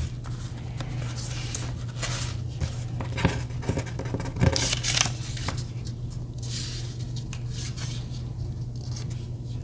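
Thin paper sticker sheets rustling and ticking as they are handled and laid on a planner page, over a steady low hum.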